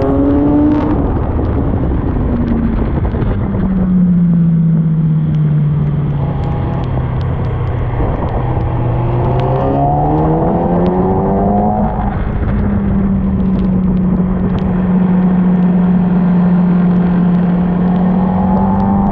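Sport motorcycle engine at speed on a race track: the revs climb and drop through the gears near the start, hold lower for a few seconds, climb again about eight to twelve seconds in, then run steady at high revs, over a constant rushing noise.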